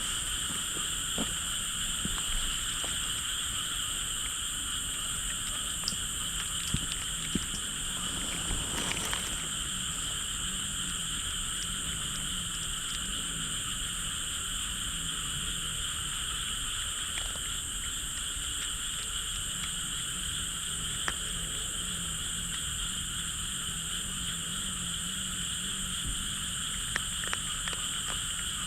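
A dense chorus of frogs calling continuously in the fields at night, with a few faint clicks scattered through it.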